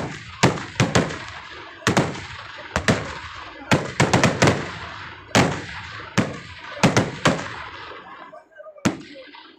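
Daytime fireworks: aerial shells bursting overhead in a rapid, irregular string of sharp bangs, about two a second and each briefly echoing. The bangs thin out near the end, with a short lull before one last report.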